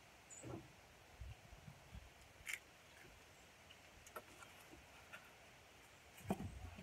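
Near silence, broken by a few faint taps and rustles of vegetables and a cardboard box being handled, the clearest one near the end.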